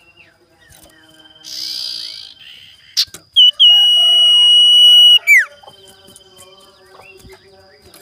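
A short raspy hissing call about one and a half seconds in, typical of a pet sirtu owl, then a loud high whistle held steady for about two seconds that ends in a quick downward slide.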